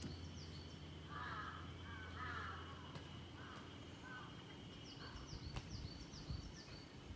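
Crow cawing several times, a few short calls spread over several seconds.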